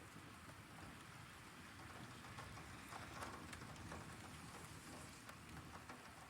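Heavy rain falling: a steady, faint hiss with scattered sharp drop taps.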